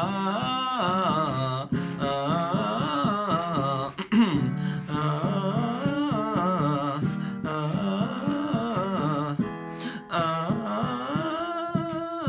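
Male voice singing a vocal scale exercise, running up and down through a series of notes, pausing briefly about four seconds in and again near ten seconds, to work on blending chest voice into head voice with a compressed, twangy tone.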